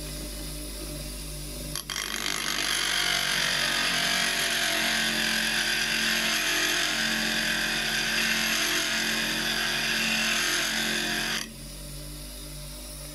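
Bench grinder motor running with a steady hum; about two seconds in, a steel chisel is pressed against the grinding wheel, giving a loud hissing grind for about ten seconds before it is lifted off and the motor runs on alone. The bevel is being ground close to the cutting edge, where the thin steel is starting to blue from the heat.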